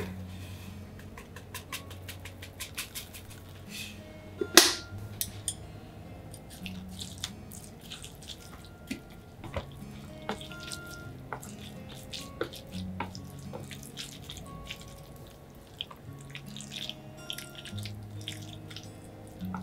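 Chopsticks tossing wet shredded napa cabbage with tuna and mayonnaise in a bowl: moist squishing with many small clicks against the bowl, and one loud knock about four and a half seconds in.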